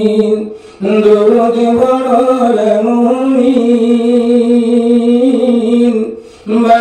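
A man singing a Bengali Islamic gazal into a microphone with no instruments, on long held notes that waver slightly, pausing for breath about half a second in and again near the end.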